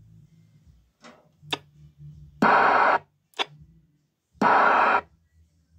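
General Electric CB radio's speaker giving two loud bursts of static, each about half a second long and cut off sharply, with a few sharp clicks between them and a faint low hum underneath.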